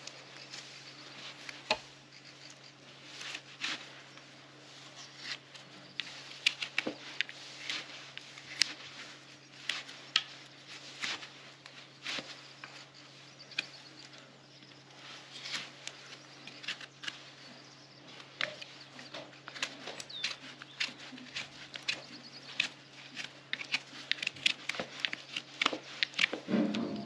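Hoof-trimming tools cutting and scraping the horn of a draft horse's overgrown hoof: irregular short scrapes and clicks, over a steady low hum.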